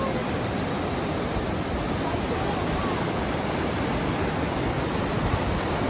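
Steady rushing of wind buffeting the microphone, heavy in the low end, with no distinct events.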